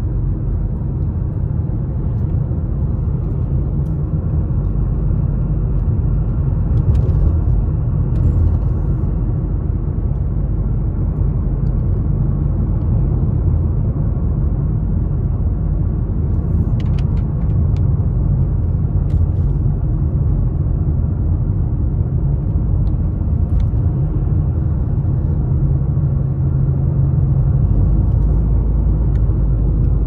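Steady low road rumble of a car driving, heard from inside the cabin: engine and tyre noise, even throughout, with a few faint ticks.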